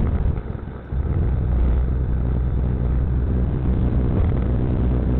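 4WD engine running as heard through a dashcam mic inside the cab, a steady low rumble that briefly drops away about half a second in.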